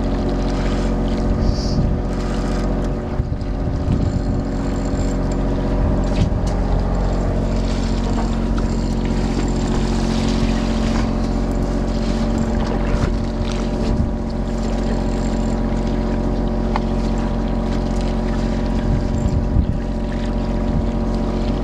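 A party fishing boat's engine running steadily, a low drone with several steady tones that hold unchanged throughout.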